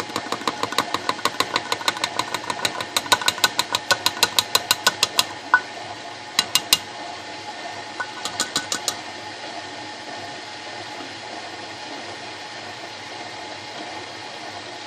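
KitchenAid stand mixer kneading a stiff bread dough with its dough hook as flour is added: the motor hums steadily under a fast, regular clicking of about five or six knocks a second for the first five seconds, two shorter runs of clicks a little later, then only the steady motor run.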